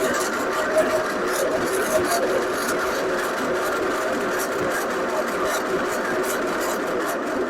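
TCF400 feed pellet machine with its 37 kW motor running: a steady mechanical hum with irregular light ticking over it.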